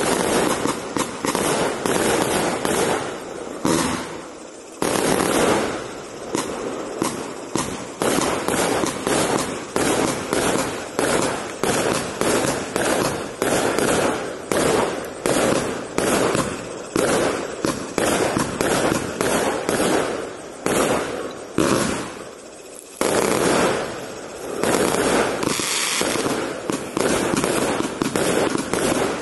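A 200-shot compound firework cake with 20 mm tubes firing a fast, continuous barrage of shots and bursts, with brief lulls about four seconds in and again near the 23-second mark.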